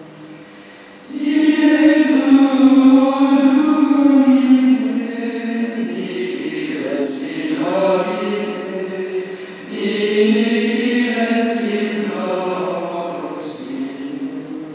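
Gregorian chant: a Latin plainchant melody sung in long, slow phrases, starting about a second in, with a short break partway through before the next phrase.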